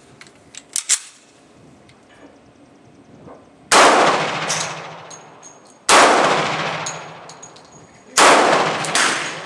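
Three close handgun shots about two seconds apart, each ringing out for a second or more. Two small sharp clicks come about a second in, before the shots.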